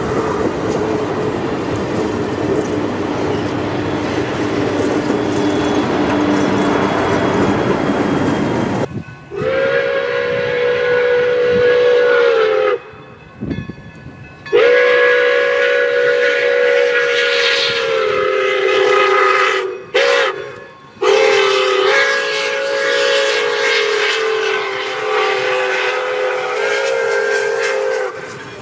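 Moving train running for about nine seconds, then its whistle sounds a long, long, short, long pattern: the grade-crossing signal. The whistle is a chord that sags in pitch at the end of each long blast.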